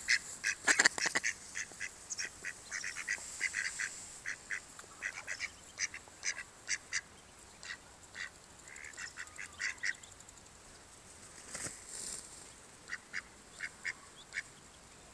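Mallards, a hen with her ducklings, giving short repeated calls. The calls come quick and dense in the first second, then spread out to a few a second and thin out toward the end.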